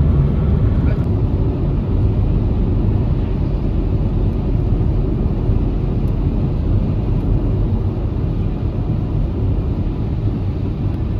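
Steady low road rumble of a moving car, tyres and engine heard from inside the cabin.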